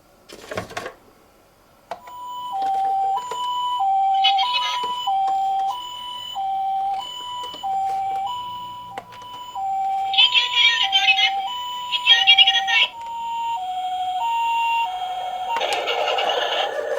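Toy ambulance minicar's electronic siren playing the Japanese two-tone high-low ambulance pattern, switching between a high and a low note about once a second. About two seconds in it starts, and near the end a loud scraping rumble takes over.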